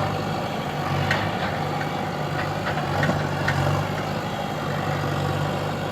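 Diesel engine idling steadily, with a few short clicks now and then.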